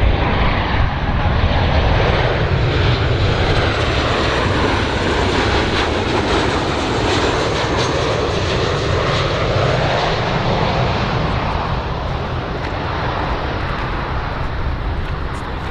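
Jet noise from a Boeing 737-800 BBJ2's twin turbofan engines on final approach: a steady roar with a faint high whine sliding in pitch in the first few seconds, easing slightly quieter near the end.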